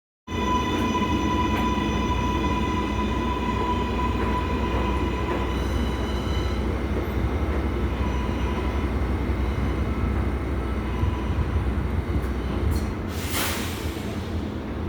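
R188 subway train running on the (7) line, a steady low rumble with a high steady whine that fades away over the first six seconds. A short hiss comes about 13 seconds in.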